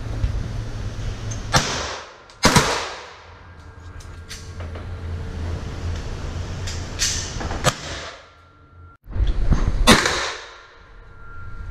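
Handgun shots in an indoor shooting range: about five sharp cracks at irregular intervals, each with a short echoing tail. The loudest come about two seconds in and near the end.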